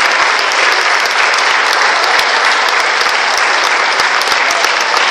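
Audience applauding steadily, a dense patter of many people's hand claps, as the choir takes its bow after a song.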